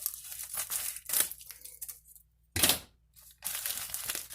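Shipping package being torn open by hand, with irregular tearing and crinkling of the packaging and a louder rip about two and a half seconds in.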